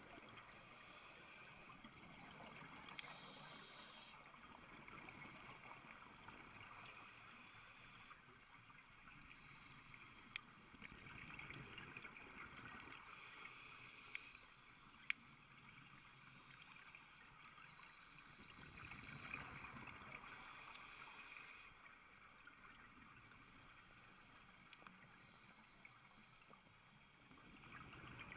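Faint, muffled underwater sound of a scuba diver breathing through a regulator: a hiss comes and goes every few seconds over a low wash, with a few sharp clicks.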